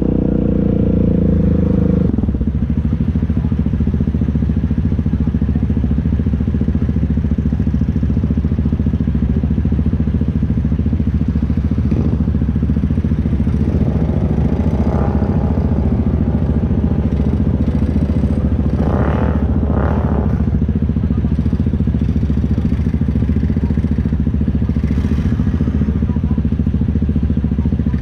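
ATV engine running steadily, easing off to a lower, even rumble about two seconds in, with a couple of short louder surges about two-thirds of the way through.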